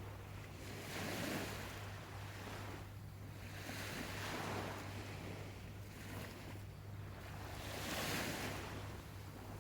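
Small waves washing onto a shore, the surf swelling and falling back in repeated washes every couple of seconds.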